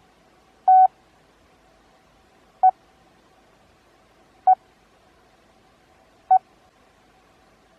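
Morse code practice tone keyed at 20 words per minute with Farnsworth spacing: one dah (the letter T), then three single dits (the letter E), each letter about two seconds apart. The beeps are all at one steady pitch.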